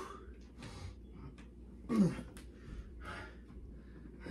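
A man breathing hard and out of breath after a wrestling match, with several heavy breaths. About two seconds in he gives a short grunt that falls in pitch as he pushes himself up to his feet.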